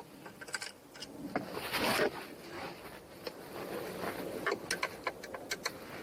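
Hand work on parts during reassembly after an ignition switch replacement: scattered light clicks and taps, a brief scraping rustle about two seconds in, and a quick run of sharp clicks near the end.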